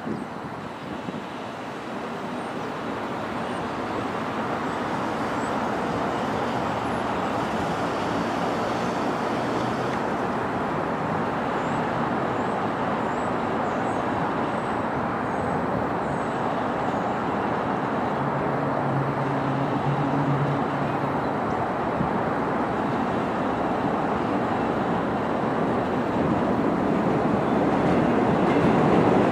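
Bombardier R62A subway train rumbling along the elevated steel structure, a steady roar that grows louder toward the end as it draws near.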